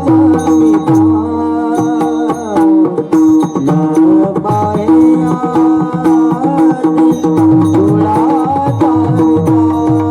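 Marathi devotional bhajan music: a melody over a steady held drone, with a tabla-like hand drum playing a rhythm of strokes whose bass pitch slides downward.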